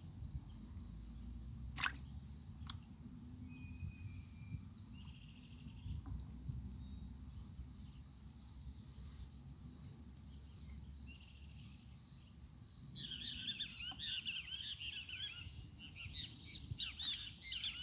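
Steady, high-pitched insect chorus droning without a break, with birds chirping over it in the last few seconds and a single sharp click about two seconds in.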